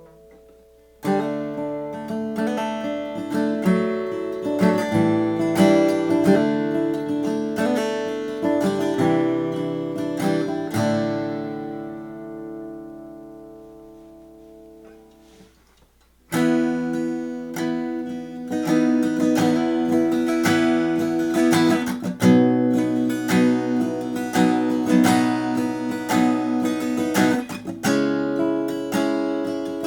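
A 1919 Martin 0-18, a small mahogany-bodied acoustic guitar, being played. Picked and strummed notes start about a second in. Around the middle a chord is left ringing and fades out over several seconds, then the playing starts again.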